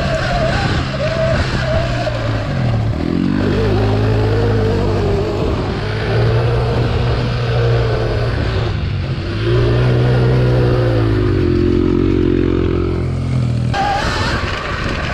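Dirt bike motor running at speed on a motocross track, its pitch rising and falling several times as it speeds up and slows, over a steady low drone that cuts off near the end.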